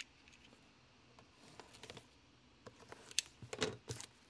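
Hands handling a shrink-wrapped trading-card box: faint plastic-wrap rustles and small taps, with a few sharper clicks about three to four seconds in.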